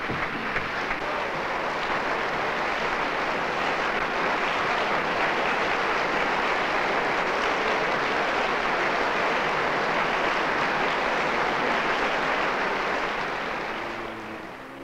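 Concert-hall audience applauding steadily as the string quartet comes on stage. The applause fades away near the end.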